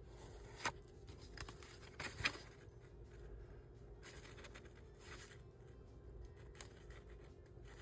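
Quiet paper handling: soft rustling and scraping of paper and card, with a few sharp clicks or taps, over a faint steady hum.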